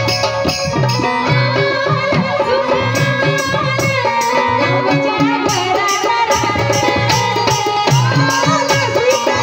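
A live Marathi Bhim geet (Ambedkarite devotional song) through microphones: singing over a steady drum beat and the held reed tones of a harmonium.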